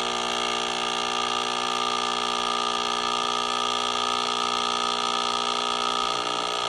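DeLonghi Nespresso Inissia's vibratory pump buzzing steadily as it pushes water through a capsule to brew espresso.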